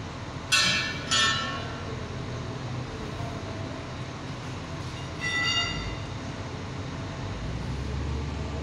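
Steel tyre bar clanking twice against a steel truck wheel rim, each hit ringing on, as a tubeless tyre is levered off the rim; a further metallic ring about five seconds in. A steady low machine hum runs underneath.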